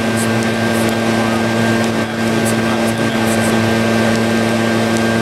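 Small two-stroke handheld gas leaf blower running steadily at constant speed, an unbroken engine-and-fan drone.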